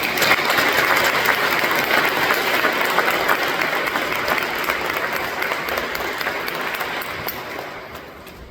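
A group of people applauding, starting abruptly and dying away near the end.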